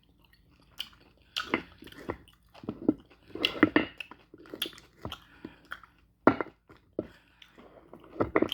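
Close-up wet chewing and lip-smacking of soft slow-cooked beef, with irregular mouth clicks and a few louder smacks.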